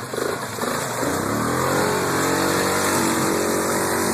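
ATV engine revving up about a second in, then held at a steady high speed.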